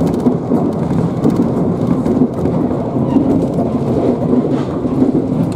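Shizuoka Railway 1000 series electric train running, a steady low rumble of wheels on the track heard from inside the car. The sound cuts off suddenly at the very end.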